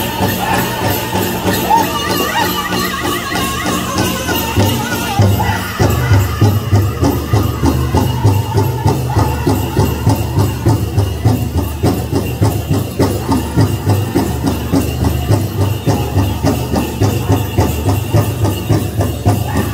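Powwow drum group playing a chicken dance song: high-pitched singing over the big drum. About five seconds in, the drumbeat becomes heavy and steady at roughly two strokes a second.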